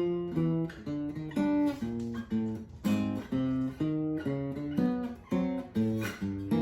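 Acoustic guitar playing a slow melancholy piece of plucked chords and notes, a new note or chord about every half second.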